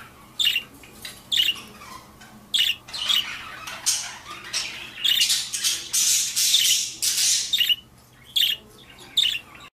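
Budgerigars squawking: short, sharp calls about once a second, with denser chatter in the middle, cutting off abruptly near the end.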